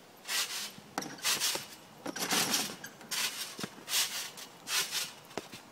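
Trampoline bouncing: the mat and springs give a rasping creak about six times, a little under a second apart, with a few short sharp knocks in between.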